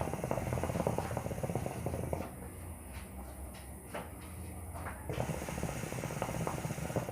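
Hookah water bubbling and gurgling as smoke is drawn through it, in two pulls of about two seconds each with a pause between them.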